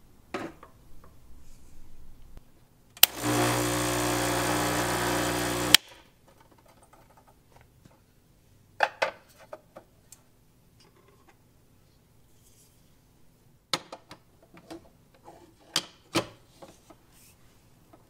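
A Gaggia Classic espresso machine's vibratory pump runs with a steady buzzing hum for about three seconds, with a sharp switch click as it starts and as it stops. Light clicks and knocks follow as a small scale is set on the metal drip tray and the portafilter is handled.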